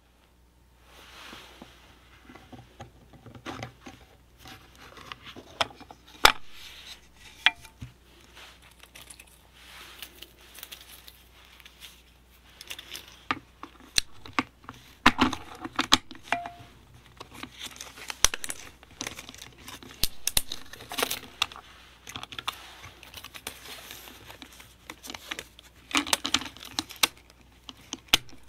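Handling noise from an Elmo 8-V 8 mm cine camera as its back cover is taken off and its film spools are lifted out and fitted: irregular clicks, knocks and rustling, with several sharp clicks standing out.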